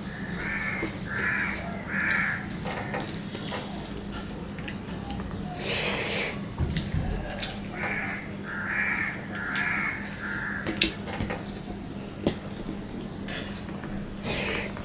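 Rice and fried jute leaves squished and kneaded by hand on a steel plate, with wet smacking and chewing. Over it, a bird calling in short runs: three calls near the start and four or five past the middle.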